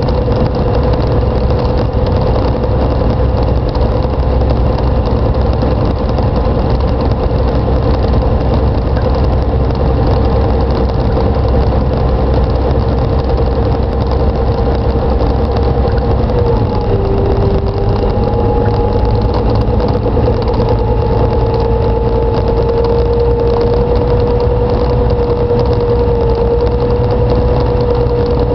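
Jabiru 3300 six-cylinder air-cooled engine and propeller of a Thorp T-211 droning steadily, heard from inside the cockpit. The pitch dips briefly about two-thirds of the way through and again right at the end as the power changes.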